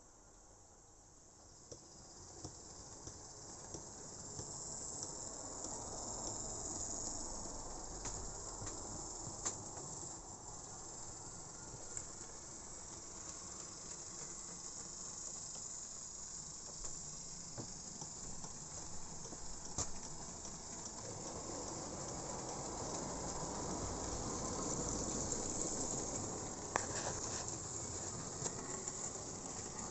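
Model railway train running along the track, its motor and wheels growing louder as it approaches, with a few sharp clicks along the way.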